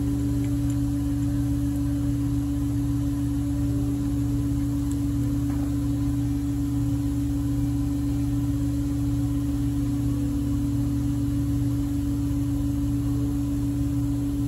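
Steady droning hum with one constant mid-low tone over a low rumble, unchanging and without knocks or clicks.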